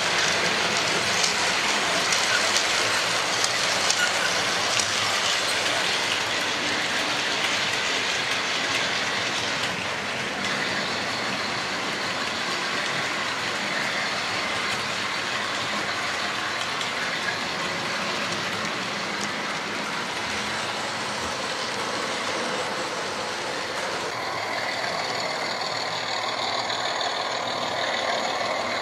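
Several model trains running at once on a layout: a steady rattle and hum of wheels and electric motors on the track, a little louder for the first ten seconds or so.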